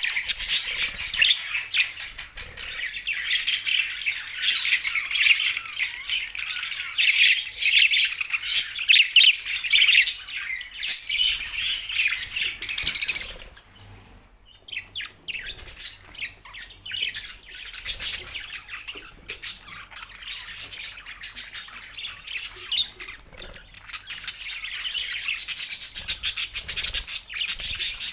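Two male budgerigars chattering and warbling, a dense stream of rapid chirps and squawks, with a short lull about halfway through before the chatter picks up again.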